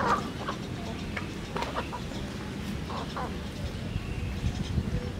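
Chickens clucking while feeding: a handful of short, scattered calls from the flock of hens and a rooster.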